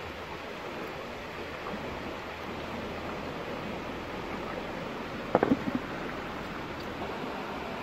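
Steady rush of flowing stream water, with a short clatter of four knocks about five seconds in as a clay lid is set down onto the clay cooking pot.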